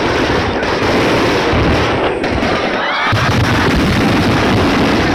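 A rapid fireworks barrage (a star mine) going off, with the bursts overlapping into a continuous crackle of booms.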